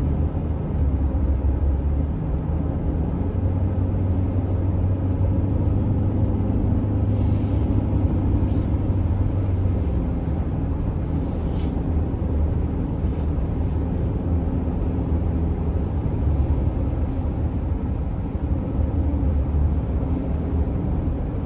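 A vehicle on the move: a steady low rumble of engine and road noise, with faint light ticks now and then.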